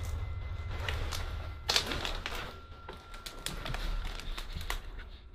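Irregular knocks and clicks, with one sharp knock about a second and a half in, over a low rumble.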